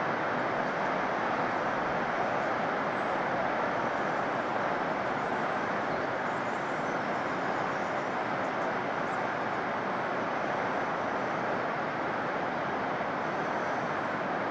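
Tall waterfall: a steady, unbroken rush of water plunging down a rock face.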